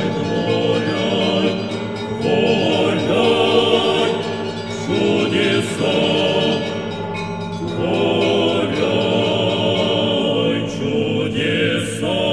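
A choir singing slow sacred church music, in phrases of a few seconds each over steady held tones: the programme's title music.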